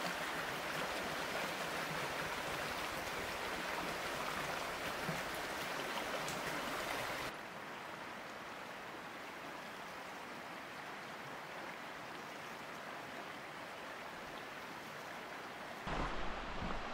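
A shallow river running over stones, a steady rush of water; about seven seconds in it cuts to a quieter, softer flow. Near the end, wind buffets the microphone.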